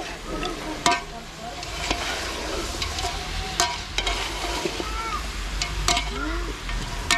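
A metal ladle stirring chicken pieces in a large aluminium pot, scraping and clinking against the pot several times, over the steady sizzle of the meat frying.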